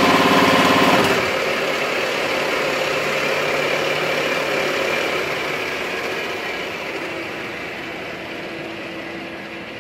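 Deckel FP41A CNC milling machine face-milling metal: a loud pitched cutting tone stops abruptly about a second in as the cutter comes off the work, then the machine runs on more quietly and fades out gradually.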